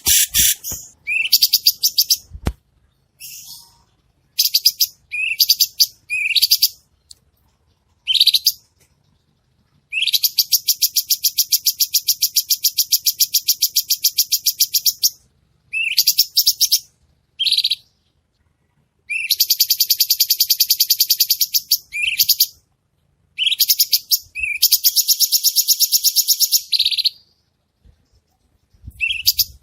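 Cucak cungkok, a leafbird, singing: short, sharp, high whistled phrases, then long runs of fast repeated notes lasting several seconds each, separated by brief pauses.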